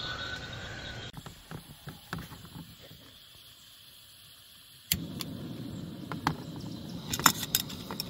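Backpacking gas stove being lit with a long lighter. There are small clicks at first, then a sharp pop about five seconds in as the burner catches, and a steady burner hiss carries on after it. A few metal clinks come near the end as the kettle is set on the stove.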